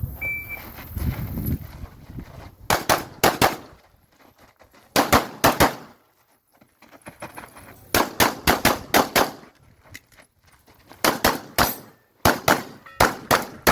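A shot timer's start beep, then a Glock 17 9mm pistol firing rapid strings of shots, about four to six in each, in five clusters separated by pauses of one to two seconds.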